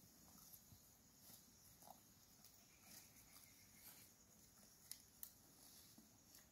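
Near silence, with faint scattered rustles and a few soft clicks, two slightly sharper ones about five seconds in.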